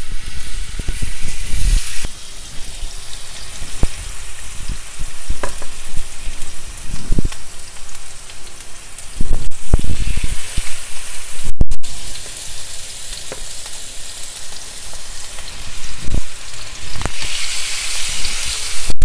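Raw seasoned lamb steaks sizzling in a hot frying pan as they are laid in one at a time with tongs. The sizzle swells each time a fresh piece goes in, and the tongs knock now and then against the pan.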